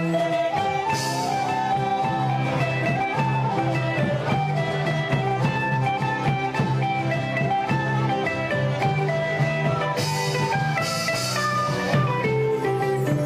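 A band playing music with plucked strings and a melody line, with short bursts of hissing percussion about a second in and again near the end.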